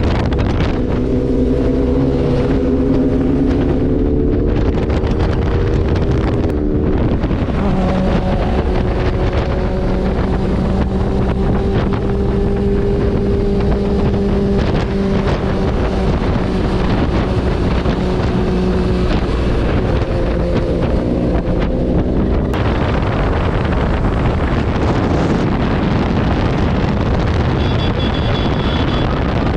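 Sport motorcycle engine running under way, with heavy wind rushing over the microphone. The engine note holds steady pitches, shifts about seven seconds in, and is buried under louder wind rush for the last third.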